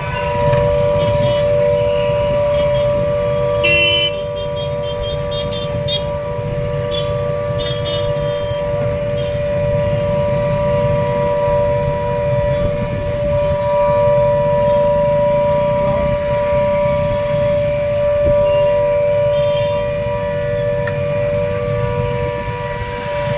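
Civil-defence air-raid siren sounding continuously at a steady pitch, two close tones heard together, as the warning signal of a blackout mock drill. A low rumble runs underneath.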